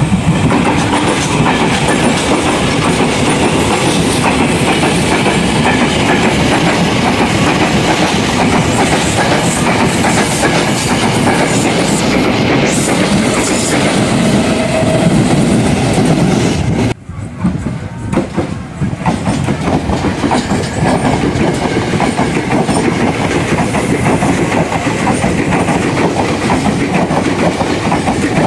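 Ex-Tokyo Metro 6000 series electric commuter trains passing close by, with steady wheel-on-rail running noise. The sound drops off sharply about two-thirds of the way through, then a second passing train picks up.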